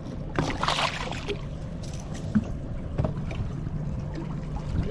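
Boat's outboard motor running at idle, a steady low hum, with a short burst of hissing noise about half a second in.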